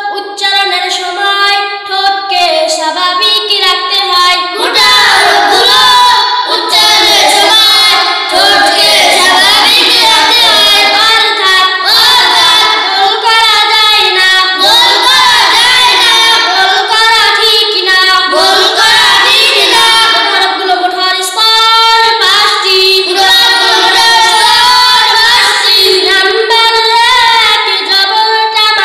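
A group of children chanting together in a sing-song melody, in continuous phrases with short breaks between them.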